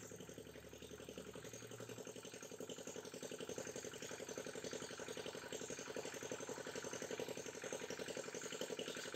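A small engine idling, with a steady rapid putter.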